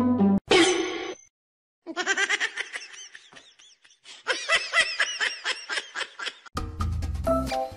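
Yellow rubber chicken toy being squeezed: one short shrill squawk, then after a brief pause long runs of rapid, high, warbling squawks. Music comes back near the end.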